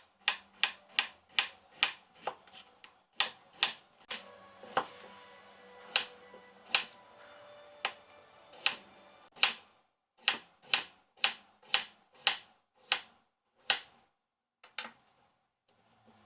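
A knife chopping on a cutting board in quick, uneven strokes, about two a second, with a short pause near the end.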